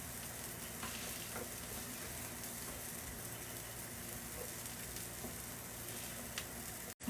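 Refried beans sizzling steadily in a hot frying pan while being mashed, with a few faint clicks.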